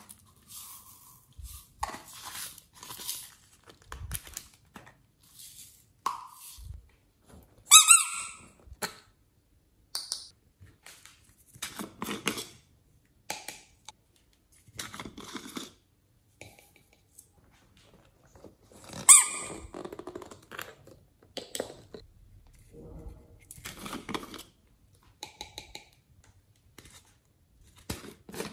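Small plastic squeeze bottles and containers handled over a glass tray of glitter: a run of short rustles and taps, with two loud sharp plastic squeaks, about eight seconds in and again about nineteen seconds in.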